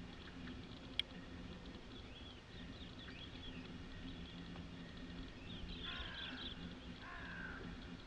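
Quiet countryside ambience with birds chirping and calling, busiest in the second half, over a faint steady low hum. A single sharp click about a second in.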